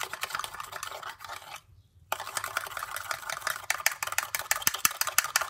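Metal spoon stirring rice flour into milk in a small clay cup, scraping and clicking rapidly against the cup's sides and bottom, with a brief pause about a second and a half in.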